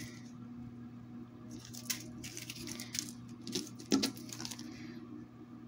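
Plastic zip bags of diamond-painting drills rustling and crinkling in short bursts as they are handled, over a steady low hum.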